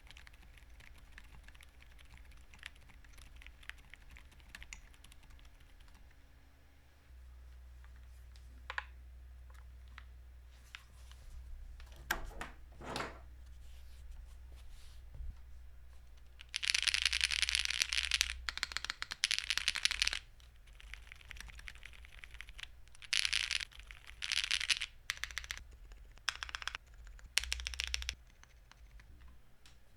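Typing on a Tofu60 2.0 custom keyboard with Emotoys Silent Daisy silent switches in an aluminium plate and JTK Griseann keycaps. Soft, quick keystrokes at first, then a few scattered single presses, then two runs of fast, much louder typing in the second half.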